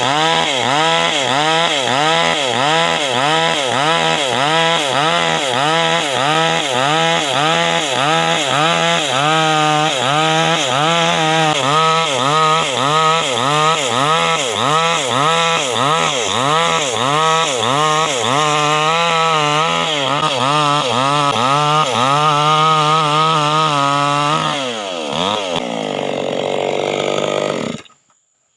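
Stihl chainsaw running at high revs while cutting sengon wood, its pitch rising and falling about twice a second. Near the end the revs drop, run on lower for a few seconds, and then the sound stops abruptly.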